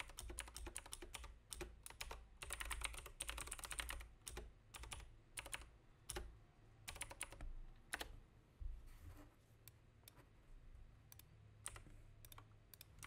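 Typing on a computer keyboard: quick runs of key clicks for about the first eight seconds, then a few scattered single clicks.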